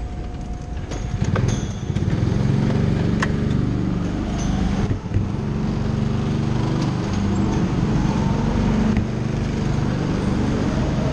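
Several go-kart motors running together, close up from the kart, getting louder about two seconds in and then holding steady, with a few light clicks.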